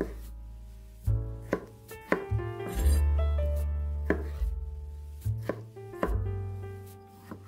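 Chef's knife slicing through ripe tomatoes and knocking on a wooden cutting board, with a sharp knock every second or so as each cut goes through.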